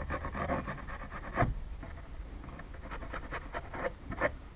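A chisel blade scraping around the edge of a hole drilled through a wooden door, paring off splinters in quick repeated strokes, with a louder knock about a second and a half in and another near the end.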